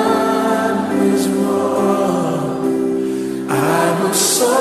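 Background music: a choir singing over held chords, growing fuller about three and a half seconds in.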